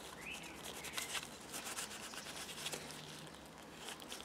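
Quiet rubbing and small clicks of gloved hands working a silicone vacuum hose onto a metal hard line in an engine bay.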